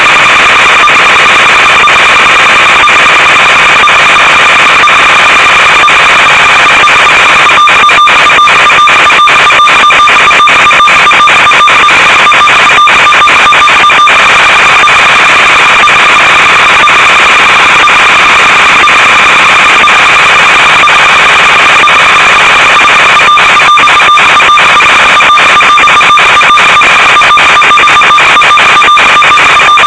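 Loud, steady static hiss with a constant buzzing tone from the audio channel of an analog FPV video link. It crackles with rapid dropouts twice, about a quarter of the way in and again near the end.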